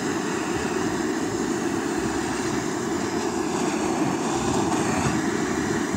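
Handheld gas torch burning steadily with its flame held against a block of wood, a constant rushing hiss.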